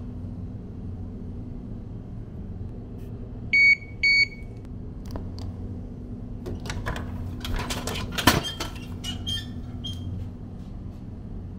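A drinks vending machine gives two short electronic beeps, then a can of Coca-Cola drops down inside it with a rattle and lands in the delivery tray with a sharp clunk, followed by a few lighter clicks.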